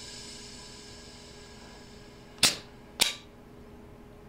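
Nova N3 Hellion mechanical paintball marker firing on compressed air: two sharp shots about half a second apart, a little past halfway. A faint high hiss fades out over the first couple of seconds.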